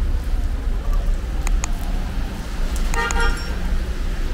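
Steady low rumble of city traffic on a rain-wet street, with a short car-horn toot about three seconds in and a couple of light clicks before it.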